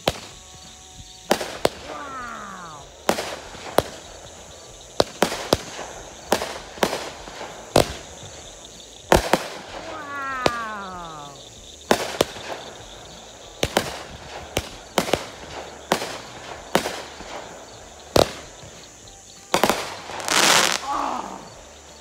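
Aerial fireworks going off: a rapid, uneven series of more than a dozen sharp bangs and cracks. Two falling whistles come about two and ten seconds in, and a rushing hiss lasting a second or two comes near the end.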